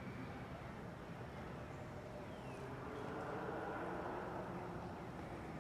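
Steady outdoor background rumble that swells a little near the middle, with a faint, short falling whistle about two and a half seconds in.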